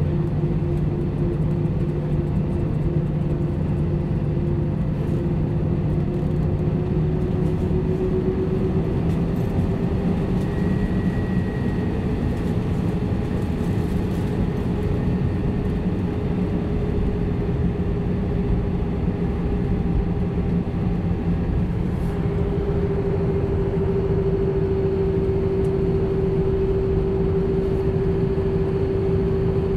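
Jet airliner heard from inside the cabin while taxiing: steady engine drone over a low rumble, with a hum that rises slightly in pitch partway through and grows louder about two-thirds of the way through.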